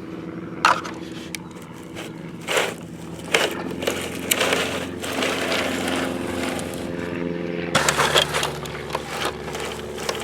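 A steady motor hum that shifts pitch suddenly about three-quarters of the way through, with scattered scrapes and knocks over it.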